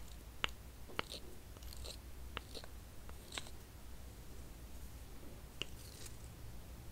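A wooden spoon stirring thick chocolate mask paste in a small ceramic bowl: soft sticky, wet sounds, with about six sharp clicks spread unevenly where the spoon knocks the ceramic.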